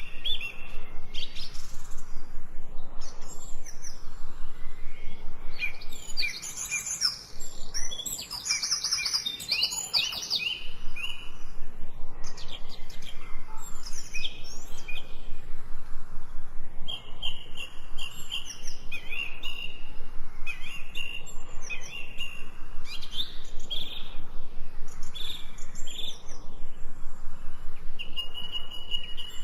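Several birds chirping and singing, short calls and whistles overlapping throughout, busiest a few seconds in.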